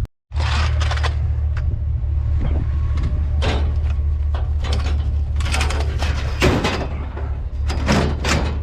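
A vehicle engine runs as a steady low hum, with several bouts of metallic clattering and rattling over it, the biggest around the middle and near the end.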